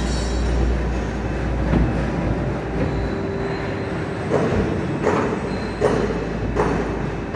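Rotary PVC dip shoe-making machine running with a steady low rumble and hum. From about halfway in there is a regular series of short mechanical knocks, roughly one every 0.7 s.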